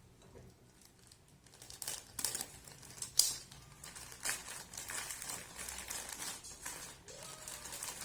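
Plastic packaging crinkling and rustling as it is handled and unwrapped, with scattered light clicks and taps, starting about a second and a half in.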